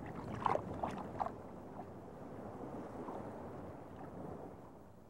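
Muffled underwater water ambience, a low, even rushing with a few short pops in the first second or so, easing off slightly toward the end.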